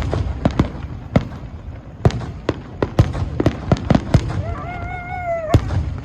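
Fireworks display: a rapid, irregular run of sharp bangs, several a second, with a held pitched call over them near the end.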